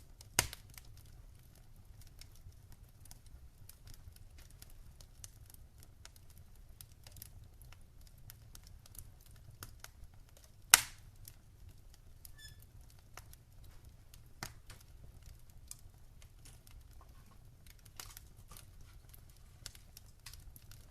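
Fire in a fire pit crackling with scattered small ticks and two loud sharp pops, one just after the start and one about halfway through.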